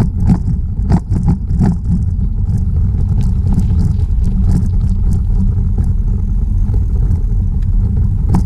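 Steady wind buffeting the microphone of a moving bicycle's camera, a loud low rumble mixed with tyre noise on the paved trail, with a few sharp knocks or rattles in the first two seconds.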